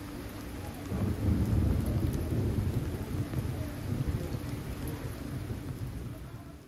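Heavy rain falling steadily, with a low rumble of thunder that swells about a second in and slowly dies away.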